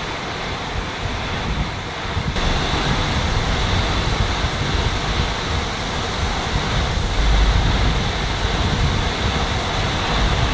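Tropical storm wind and rain rushing steadily, with gusts buffeting the phone's microphone in low rumbles. The noise grows louder about two seconds in.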